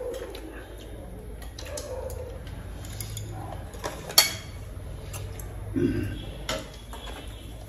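Eating utensils clinking against bowls and a wok of hotpot, with one sharp clink about four seconds in.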